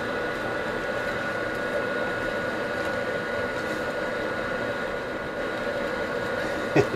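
Chinese diesel air heater running, its blower fan whirring with a steady hum and a thin high whine as warm air rushes from the outlet.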